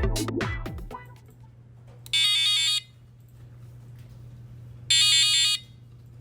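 Piezo buzzer on the DM-45F2022 sound effect module playing a short warbling electronic alarm-like effect twice, each burst about two-thirds of a second, roughly three seconds apart.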